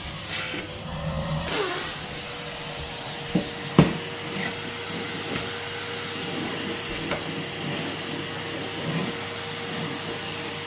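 Red Henry Hoover canister vacuum cleaner running with a steady whirring hum, its pitch shifting slightly and settling in the first two seconds. Two sharp knocks sound a little under four seconds in, the second the loudest moment.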